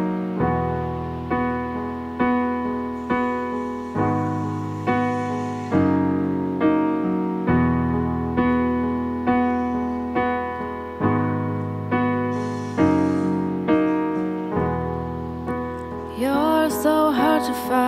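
Yamaha electric keyboard playing a slow piano intro: full chords struck just under once a second, each left to ring and fade over a low held bass note. Near the end a woman's singing voice comes in over the chords.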